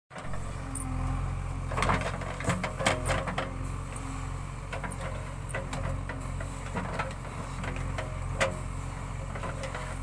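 JCB 3DX backhoe loader's diesel engine running steadily under digging load, its hydraulics working the rear backhoe arm. Sharp knocks and scrapes from the bucket biting into dry, stony soil come through over it, most of them about two to three and a half seconds in.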